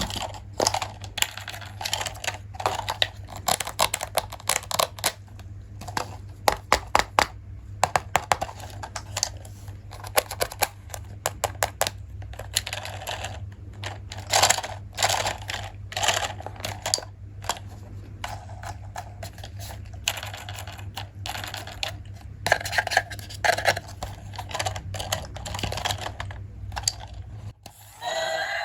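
Plastic toy parts being handled and unpacked: many rapid, irregular clicks and taps, with a steady low hum underneath that stops near the end.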